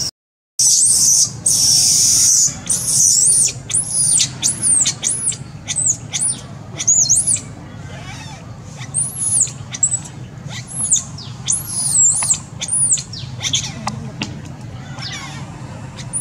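Baby macaque crying: a longer high-pitched cry at the start, then a string of short, high squeals that rise and fall, about one a second, quieter toward the end.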